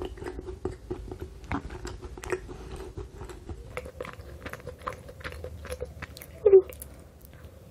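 Close-miked eating sounds: small wet mouth clicks of chewing, then a bite into a dark-chocolate-coated chocolate madeleine about six seconds in. A short, loud hum from the eater follows just after the bite.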